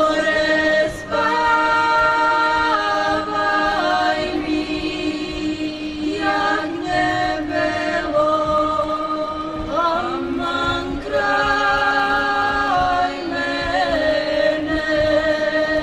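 A group of women singing a traditional Serbian folk song a cappella in harmony, several voices holding long notes, with brief pauses for breath between phrases.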